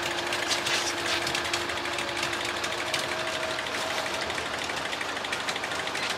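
Fishing boat's engine running steadily, with a faint steady hum that steps up in pitch about three seconds in.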